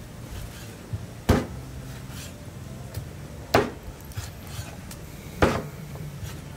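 Meat cleaver chopping pork on a wooden chopping block: three heavy chops about two seconds apart, with a few light knocks between them.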